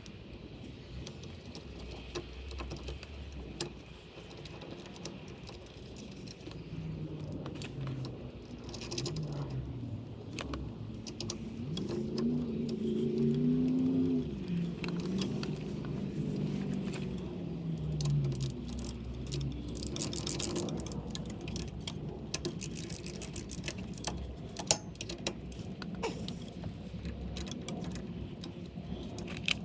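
Metal clinking and rattling of tools and brake parts being handled during a brake pad job, with scattered sharp clicks throughout. A low, wavering hum rises and falls for several seconds near the middle.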